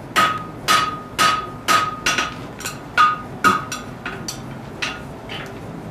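Blacksmith's hammer striking mild steel on an anvil, about two blows a second, each with a bright metallic ring; the blows grow lighter and stop near the end.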